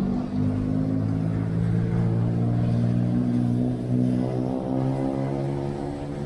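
An engine running close by: a steady pitched hum whose pitch shifts slightly up and down.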